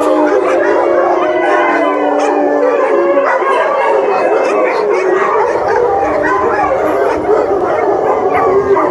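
A group of dogs howling together, many long overlapping howls at different pitches, mixed with short yips and barks.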